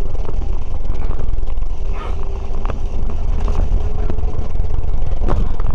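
Bus engine and road noise heard from inside the cabin: a steady low rumble with a faint held whine and small rattles and clicks.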